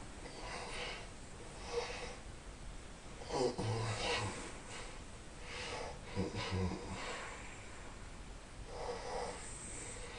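A sleeping person snoring: noisy breaths every second or two, with two louder snores that have a low buzz, about three and a half and six seconds in.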